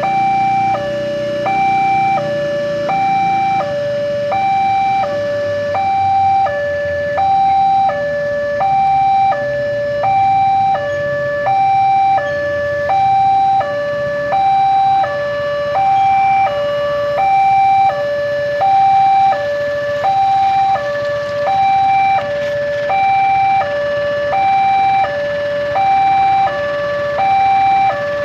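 Railway level-crossing warning alarm: an electronic two-tone signal from the crossing's loudspeaker, stepping steadily back and forth between a higher and a lower tone about every three quarters of a second. It signals that a train is approaching.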